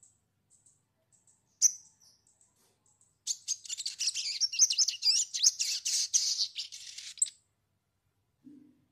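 Sogon (scimitar-babbler) calls: a few short, sharp high chirps, then about three seconds in a dense burst of rapid high chattering that lasts some four seconds and stops abruptly.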